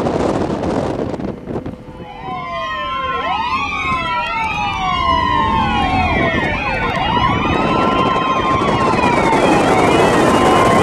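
Several police sirens wailing at once, their pitches sweeping up and down and overlapping, coming in about two seconds in and growing louder, over the car's engine and road noise.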